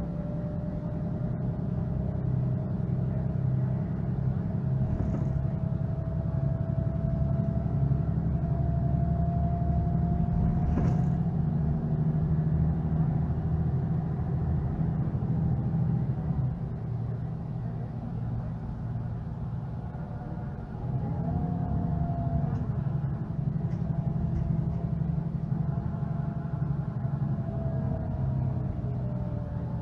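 Mercedes-Benz Citaro G articulated bus's OM457hLA turbocharged straight-six diesel running under way. The engine pulls with a whine that slowly rises in pitch, eases off for a few seconds past the middle, then pulls again with a fresh rising whine.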